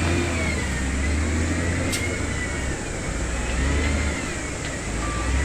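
Diesel engine of heavy construction machinery running under changing load, a low rumble that swells and eases, with a high whine wavering in pitch above it and a sharp click about two seconds in.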